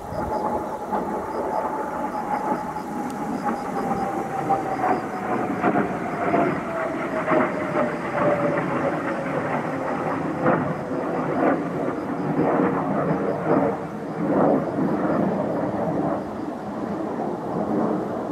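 Military jet flying overhead: a steady roar with a crackle in it, and a whine that falls slowly in pitch over the first dozen seconds as it passes.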